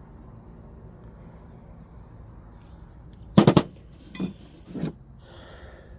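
Steel hand tools clinking together as they are handled and set down: a quick cluster of three clanks about three and a half seconds in, then two lighter clinks. Crickets chirp steadily in the background.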